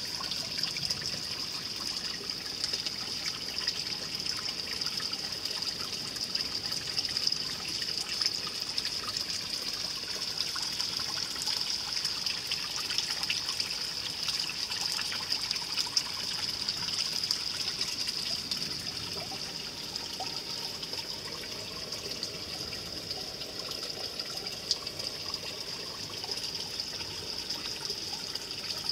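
Running water trickling steadily, a high hiss with small splashes.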